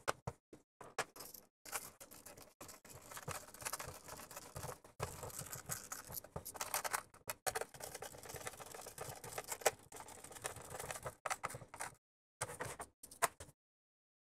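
Hands handling a plastic electrical enclosure and its cable: irregular rustling, clicks and knocks as the enclosure cover is fitted and closed, with one louder click about ten seconds in.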